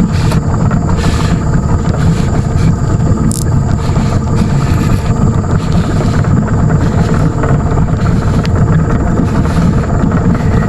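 Steady low rumble of a running engine, without letup.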